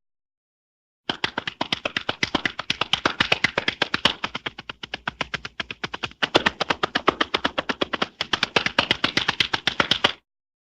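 Slap sound effect: a rapid run of sharp hand slaps, about eight a second, that keeps going for about nine seconds with brief dips along the way. It starts about a second in and stops abruptly near the end.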